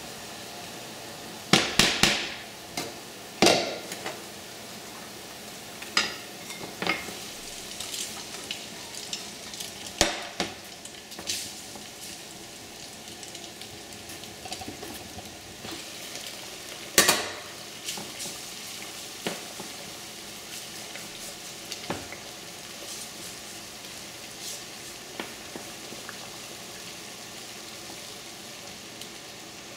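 Garlic and then cooked spaghetti sizzling in a small frying pan, stirred with a silicone spatula that knocks and scrapes against the pan now and then. The loudest knocks come about two, three and a half, ten and seventeen seconds in.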